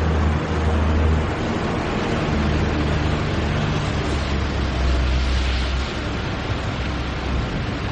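Factory machinery running: a steady mechanical din over a deep hum that swells and dips in strength.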